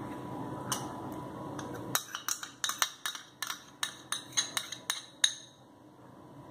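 Metal spoon clinking against a small glass bowl while scraping yogurt out of it: a couple of single clinks, then from about two seconds in a quick run of sharp clinks, several a second, that stops about a second before the end.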